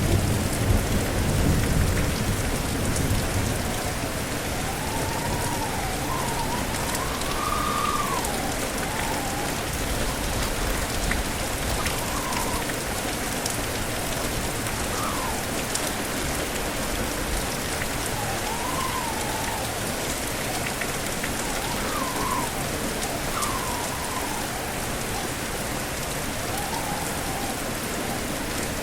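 Steady heavy rain, with the tail of a low thunder rumble dying away in the first couple of seconds. Strong wind whistles over it in slow wavering rises and falls of pitch from about five seconds in.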